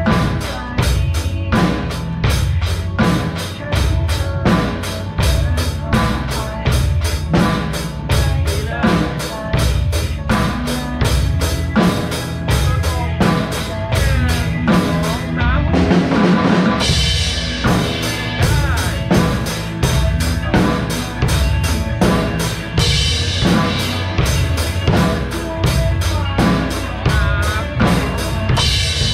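A drum kit played to a steady rock-pop beat of bass drum, snare and cymbals, along with a recorded pop song. Cymbal crashes ring out about halfway through and again later on.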